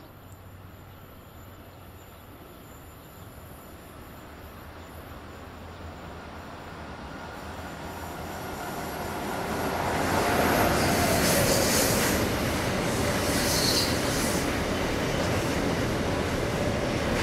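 Freight train of an SBB Cargo Re 482 electric locomotive and tank wagons approaching, growing steadily louder, then rumbling past with wheel-on-rail noise. From about ten seconds in there are bursts of high-pitched wheel squealing as the wagons roll by.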